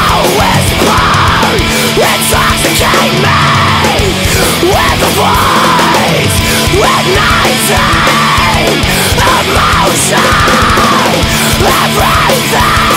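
Loud, heavy, distorted metal music from a band: guitars, bass and drums, with high notes that swoop up and down over and over.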